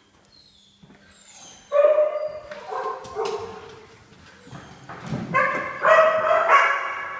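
A dog whining and yipping in high-pitched, wavering cries. There are two bouts, one about two seconds in and a louder one from about five seconds in.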